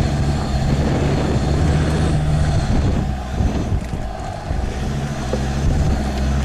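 Land Rover Discovery 2's Td5 five-cylinder turbodiesel running at low revs, heard from inside the cabin over rough ground. The engine note drops back about three seconds in and picks up again about two seconds later.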